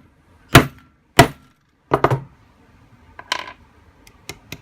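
Hammer striking a metal press-fastener setting punch to set a snap: three hard blows well under a second apart, the last one doubled, then a few lighter taps near the end.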